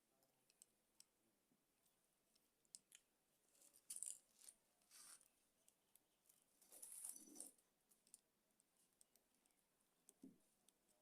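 Faint clicks and short scraping rustles of small objects being handled, the clearest about four seconds in and again about seven seconds in, with a soft knock near the end.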